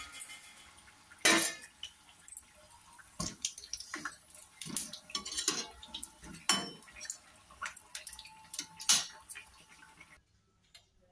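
Perforated steel skimmer knocking and scraping against an iron kadhai while kachoris are turned in deep-frying oil, over a faint steady sizzle. The knocks come irregularly, about one a second, with the loudest about a second in and again near the end, and everything drops away suddenly shortly before the end.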